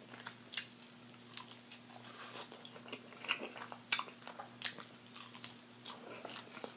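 Close-miked chewing and lip smacking while eating a chicken wing, with scattered sharp, wet clicks every second or so.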